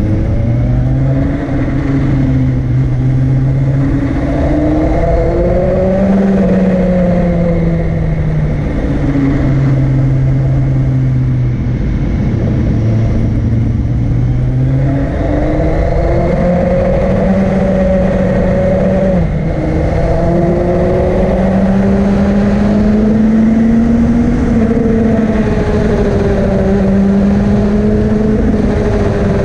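Motorcycle engine pulling uphill on a winding road. Its note rises and falls with the throttle and drops suddenly a few times at gear changes, over a steady rush of riding noise.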